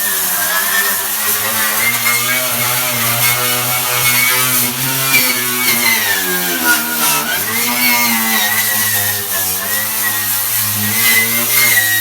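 A motor running steadily, its pitch sagging briefly about seven seconds in and then recovering.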